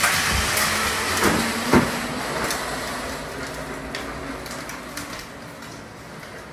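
Battery-powered ride-on toy car driving across a concrete garage floor, its plastic wheels and motor rumbling, with a couple of knocks early on. The sound fades as the car rolls away onto the driveway.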